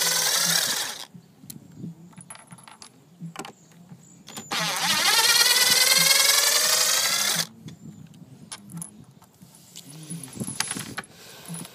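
Craftsman 20-volt cordless impact driver running in two bursts, backing out a subwoofer's mounting screws. The first burst ends about a second in; the second, nearly three seconds long, starts about halfway, its pitch rising as it spins up. Light clicks and rattles fall between and after the bursts.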